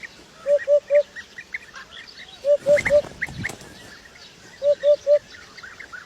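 A bird calling in groups of three short, low notes, three times about two seconds apart, with faint chirping of other birds behind.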